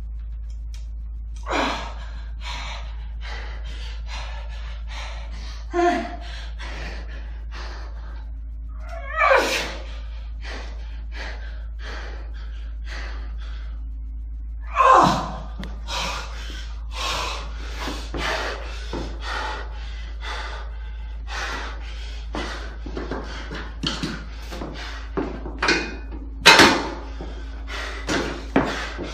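A man breathing hard from exertion: short forceful exhalations about once a second, with several louder gasps, over a steady low hum.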